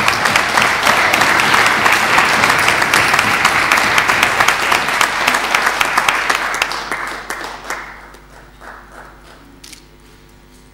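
Audience applauding, a dense clapping that dies away about seven to eight seconds in, leaving a few scattered claps.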